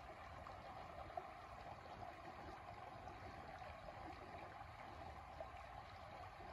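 Shallow creek water running over a rocky riffle: a faint, steady babble with small scattered pops.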